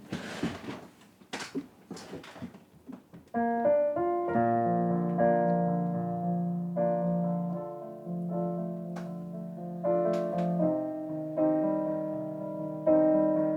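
A few seconds of rustling and knocks, then a piano comes in about three seconds in, playing slow sustained chords as a song's introduction.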